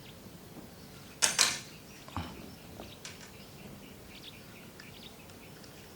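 Handling noises of a laptop SSD and its metal mounting bracket being fitted in by hand: a short loud rattle and scrape a little over a second in, a knock just after two seconds, then a few light clicks.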